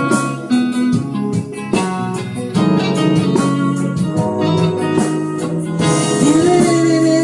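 Guitar music with plucked notes and chords, an instrumental passage of a love song with no singing.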